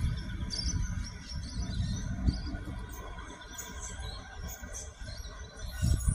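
Wind buffeting the microphone in uneven gusts, with small birds chirping now and then.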